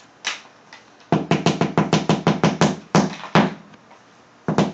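A cardboard box drummed on like a drum: a single hit, then a quick even run of about a dozen hits at roughly seven a second, then a few separate hits.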